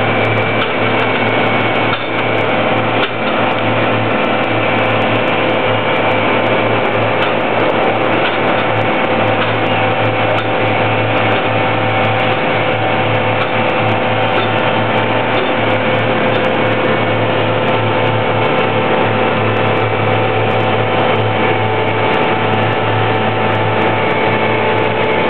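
Large slipform concrete paver's machinery running steadily: a loud, even mechanical noise with several steady tones held on top throughout.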